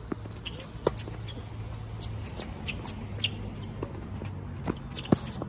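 Tennis rally on a hard court: sharp pops of the ball struck by racquets and bouncing, the loudest about five seconds in, with scuffing of players' shoes over a steady low hum.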